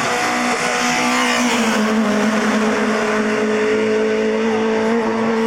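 Peugeot 406 SuperTourisme race car's 2.0-litre engine running at steady, sustained revs, its pitch dipping slightly about a second and a half in and then holding, with tyre hiss from the wet road underneath.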